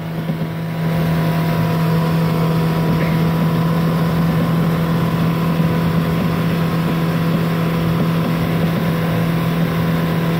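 Boat motor running at a steady speed under way, a constant hum that holds its pitch, over a wash of noise.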